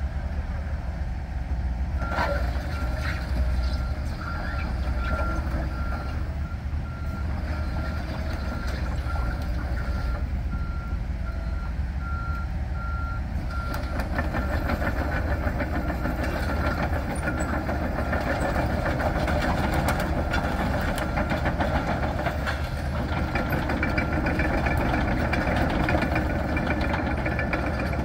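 Komatsu PC138USLC-11 excavator's 97 hp diesel running as the machine travels on steel tracks, with its travel alarm beeping steadily through the first half. About halfway through the beeping stops and a dense clanking rattle of the tracks takes over.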